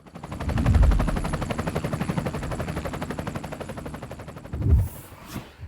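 Robinson R44 helicopter rotor beating in a fast, even chop of blade slaps, loud at first and fading, with a brief swell of low thumping a little before the end, then a short whoosh.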